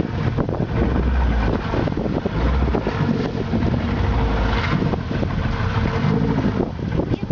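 Glass-bottom boat's motor running steadily, with wind buffeting the microphone in gusts.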